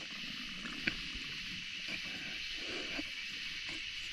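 Steady, even high-pitched chorus of night insects, with a faint click from handling the line just under a second in.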